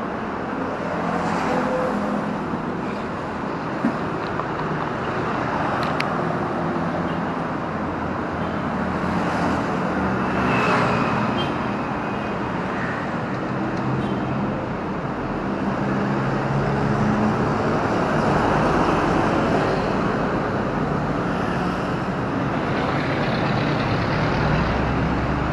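A 2005 Suzuki APV's engine running, giving a steady mechanical and road-type noise.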